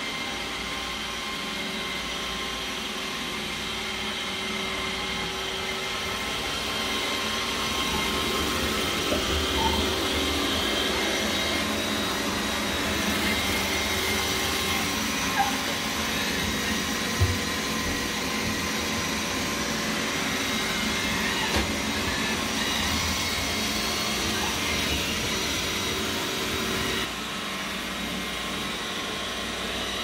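iRobot Roomba robot vacuum running on a hardwood floor: a steady motor and brush whir with a few fixed humming tones, louder through the middle and dropping back suddenly near the end. A few short sharp knocks sound over it.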